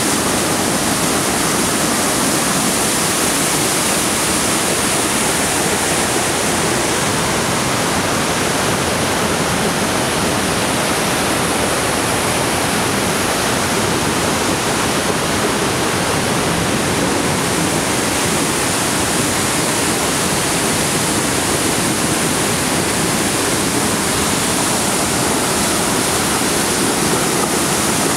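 A river swollen by heavy rain crashes over rocks in a cascade and runs on as rapids, making a loud, steady rush of white water.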